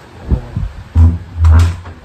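Loud, dull low thumps: a short one a third of a second in, then two heavier ones about a second in, the second lasting about half a second.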